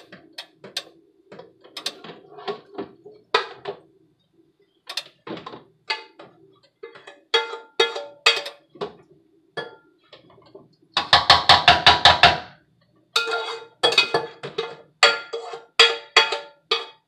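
Off-camera kitchen clatter: scattered clicks and knocks, then several spells of rapid metallic ratcheting clicks with a ringing tone in the second half.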